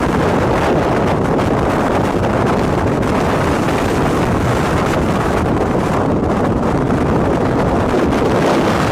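Strong wind buffeting the microphone: a loud, steady low roar with no breaks.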